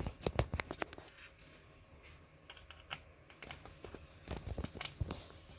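Small clicks and taps of a screwdriver taking out screws inside an opened laptop. A quick run of clicks comes in the first second, then scattered ones.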